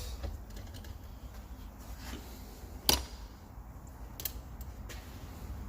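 Light metallic clicks of engine parts being handled and seated on a diesel cylinder head, with one sharp knock about three seconds in, over a low steady hum.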